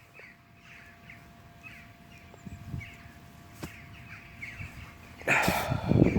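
Crows cawing repeatedly in the background, with a faint steady tone running underneath and a louder, noisy sound about five seconds in.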